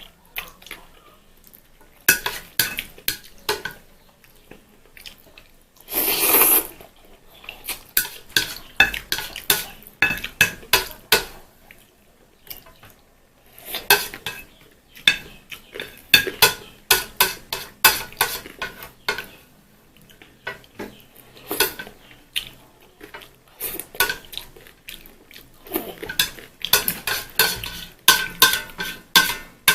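Cutlery clinking and scraping against a dish in quick clusters of strokes while instant fried noodles are eaten, with one longer noisy sound about six seconds in.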